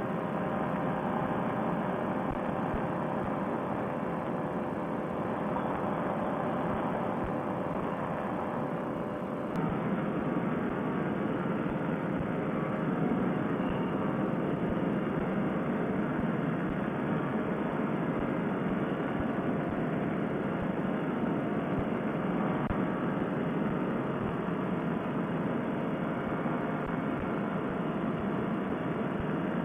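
Paramotor trike's Fresh Breeze Monster two-stroke engine and propeller running steadily in cruising flight, with wind over the microphone; the drone steps up slightly about ten seconds in.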